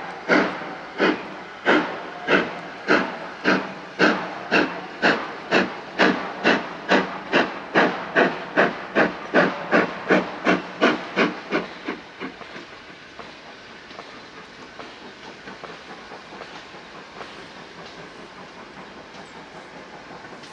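GWR Hall class 4-6-0 steam locomotive 6960 working a train, its two-cylinder exhaust beating sharply and quickening from under two beats a second to about three as it gathers speed. About twelve seconds in the beats stop, leaving a steady hiss and the quieter running of the train.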